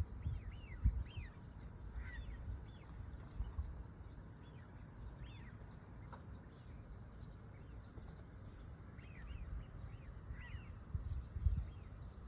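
Birds chirping: many short, quick chirps that fall in pitch, clustered in the first few seconds and again near the end, over a steady low rumble.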